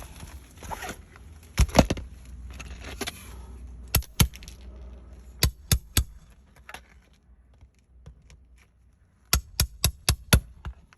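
Roofing nails being pulled from under a shingle with a 5-in-1 nail puller and a roof snake: scraping, then sharp metal knocks that come in twos and threes, and a quick run of about six near the end.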